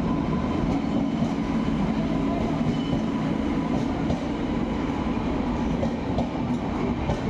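Passenger train running on the rails: a steady rumble and hum with faint, irregular wheel clicks.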